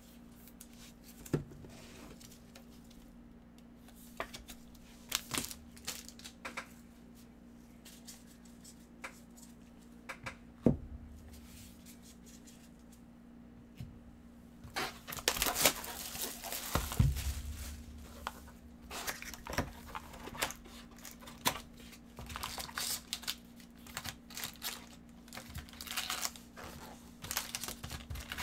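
Cardboard and plastic packaging crinkling and tearing as a sealed trading-card box is opened, dense from about halfway through. Before that there are only a few light clicks from cards being handled.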